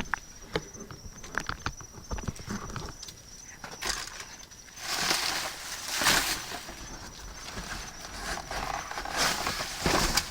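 Trash being rummaged through in a dumpster: a few sharp knocks at first, then louder rustling and crinkling from about five seconds in.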